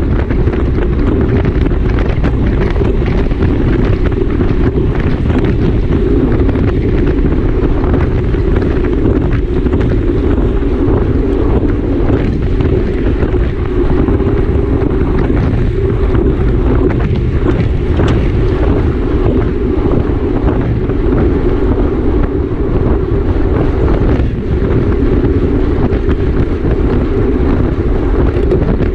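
Loud, steady wind noise buffeting the microphone of a camera riding on a road bike at race speed, with small irregular gusts.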